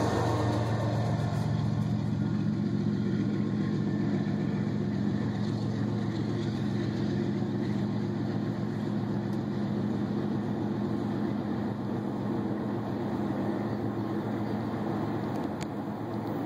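Diesel engine of a BNSF ES44DC locomotive at the tail of a freight train, a steady low rumble that slowly fades as the train pulls away.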